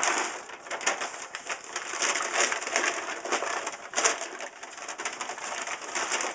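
A plastic mailing envelope crinkling and rustling as it is handled and shaken, a dense run of crackles throughout.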